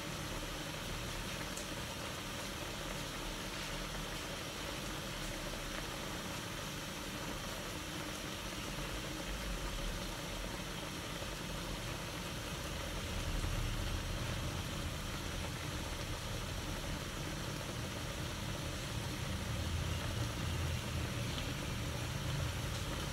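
Pork tocino simmering in its marinade and water in an aluminium wok on a gas stove: a steady bubbling hiss with a low rumble underneath. This is the stage where the water is boiled off before the meat fries in its own fat.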